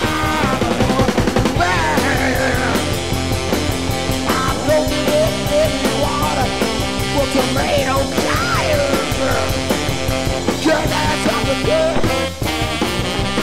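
Background music: a rock song with a steady beat.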